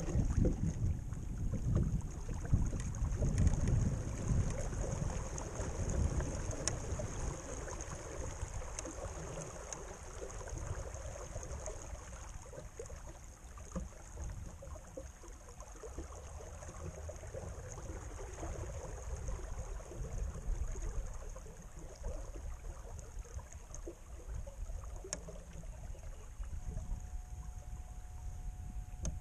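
Wind buffeting the microphone and water gurgling along the hull of a small sailing skiff under way in light air. The wind rumble is heaviest in the first few seconds, then eases, with a steady high hiss behind it.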